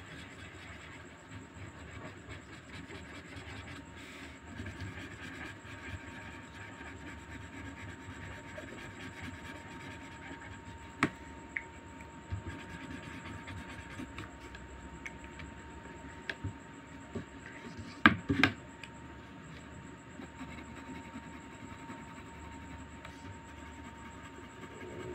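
Marker scribbling on paper as a drawing is coloured in, over a steady background hum. A sharp click comes about midway, and a louder cluster of clicks about three-quarters through.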